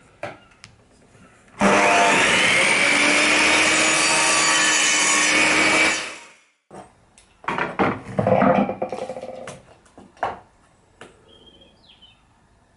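Hitachi mitre saw started and cutting through timber, running steadily for about four and a half seconds before the motor dies away. It is followed by a run of sharp knocks and clatter.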